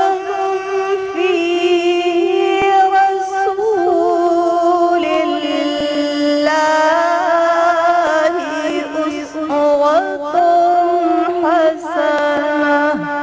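Melodic Quran recitation (tajweed): a single voice chanting long, held notes with ornamented turns, stepping down in pitch about five seconds in.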